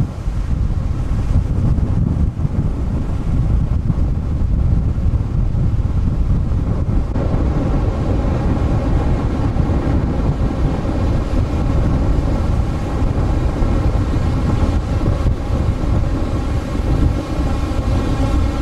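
Wind buffeting the microphone with a heavy, steady low rumble. From about seven seconds in it is joined by the wash of large Lake Michigan storm waves breaking and surging over the rocks and flooded beach.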